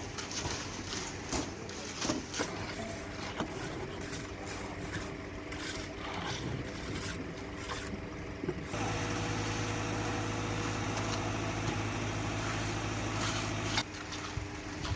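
Site construction noise: scattered scrapes and knocks. About nine seconds in, an engine starts running with a steady hum, and it cuts off about five seconds later.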